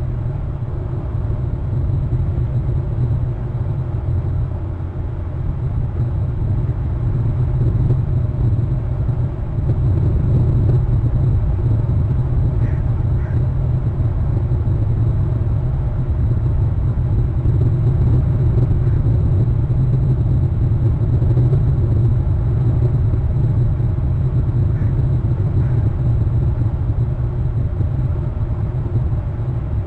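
Steady low rumble of wind buffeting an outdoor nest-cam microphone.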